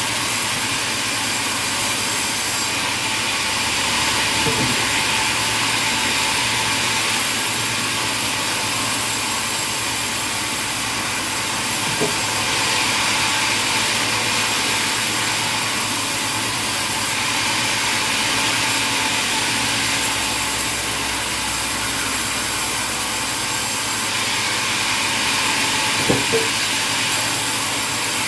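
Sawmill saw and machinery running steadily, the cutting noise swelling and easing every few seconds as timber passes through, with a few sharp knocks of wood or metal.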